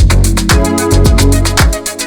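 Background music with a steady electronic dance beat and heavy kick drum, starting abruptly at the very beginning.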